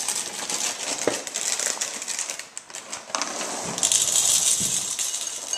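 Dry Cheerios poured from the box into a ceramic bowl: a dense pattering rattle of small pieces hitting the bowl, loudest from about four seconds in, after some scattered clicks and rustles as the box is handled.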